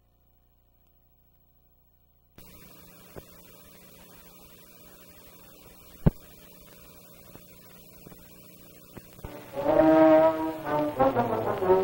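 Near silence, then the steady hiss and hum of a worn old film soundtrack with one sharp click near the middle; about nine seconds in, loud brass theme music begins, the opening theme of a 1950s live television police drama.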